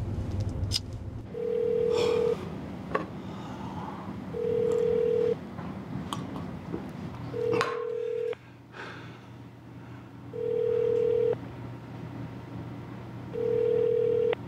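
Telephone ringback tone heard through a phone's earpiece while a call rings out unanswered: a steady tone lasting about a second, then a two-second pause, five times over.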